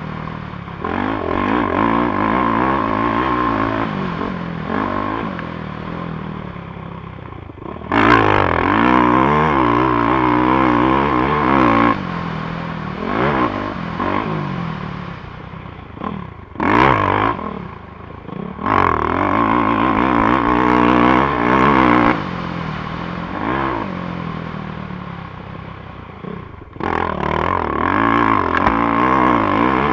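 450cc dirt bike's engine being ridden hard, revving up and backing off again and again, with sharp surges as the throttle is opened wide several times, and rattling from the bike over rough ground.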